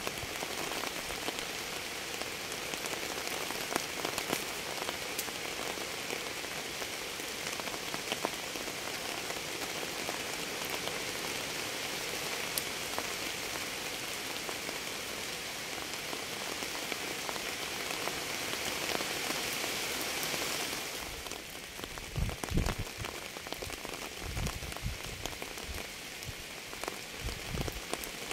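Steady rain falling, an even hiss with individual drops ticking through it. About three-quarters of the way through the hiss thins and a few low thuds come in.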